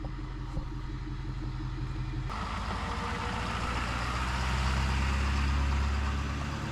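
Motor vehicle engine running with road noise. The noise picks up about two seconds in and grows steadily louder, as of a vehicle getting under way.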